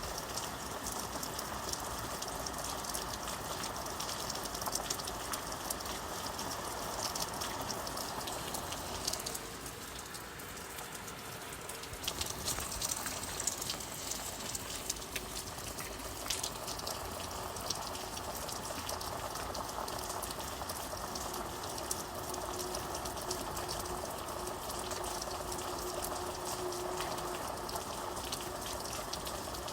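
Steady rain falling, with many separate drops heard ticking, that eases briefly about a third of the way through. A faint steady low hum runs under it in the second half.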